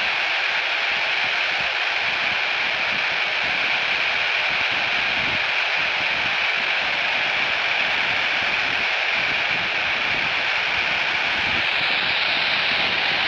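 FM static hiss from a Baofeng handheld radio's speaker, tuned to 145.800 MHz, the ISS voice downlink, with no station coming through. A steady, even hiss.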